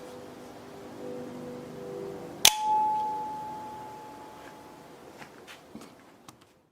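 Benchmade OTF automatic knife's spring-driven blade snapping into lock with one sharp, loud click about two and a half seconds in, the metal ringing on with a clear tone that fades over about two seconds. A few light clicks follow near the end.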